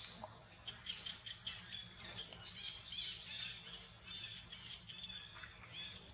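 Many short, high-pitched chirps and squeaks in quick succession, over a faint steady hum.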